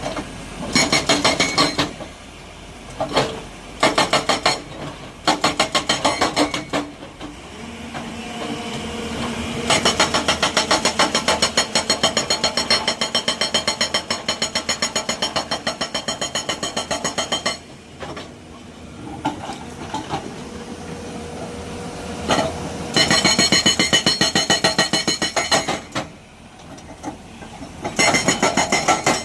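Rapid mechanical hammering, many blows a second, in repeated bursts from under a second to several seconds long, the longest about ten seconds in, with machinery running steadily between the bursts.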